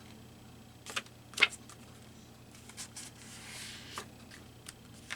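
Handling of a small book: a few light clicks and taps, the sharpest about a second and a half in, and a soft paper rustle a little after three seconds as a page is turned.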